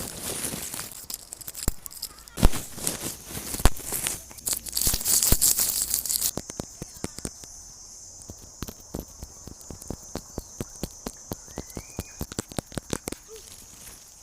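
Close-miked ASMR sounds: rustling and crinkling with a few sharp knocks for the first six seconds. After that comes a quick run of light taps, several a second, over a steady high hiss.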